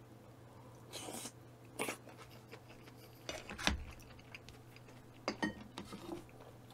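Utensils clicking and knocking against a dish during eating, in a few short scattered sounds, the loudest about three and a half seconds in.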